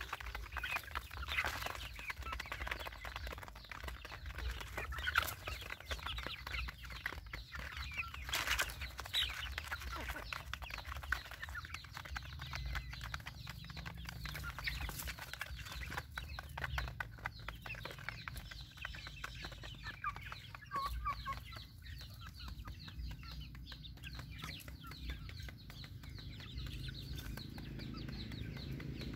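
Young chickens clucking and calling while they peck grain from a pan, with many quick taps and pecks throughout, over a low steady rumble.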